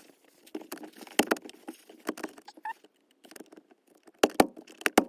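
Sharp plastic clicks and knocks from the car's centre-console gear-panel trim being pressed and snapped into place, in a few clusters, the loudest pair about a second in and another run near the end.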